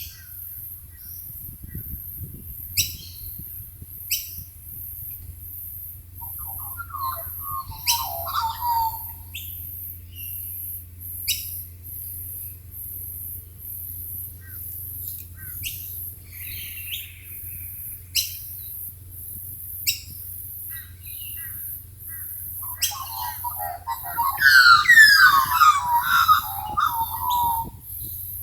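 Wild birds calling: scattered short, sharp calls, and a warbling song about eight seconds in that returns, louder and longer, near the end. Underneath runs a steady, very high pulsing insect chirp, about one pulse a second.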